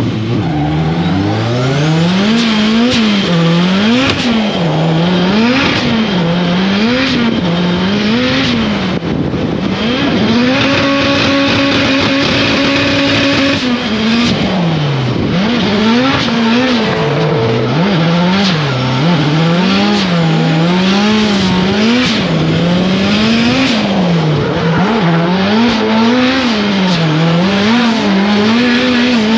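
Toyota AE86 drift car's engine heard from inside the car, revving up and down over and over as the throttle is worked through a drift run. About ten seconds in the revs are held high and steady for roughly three seconds, then the rising and falling goes on, with tyres squealing under it.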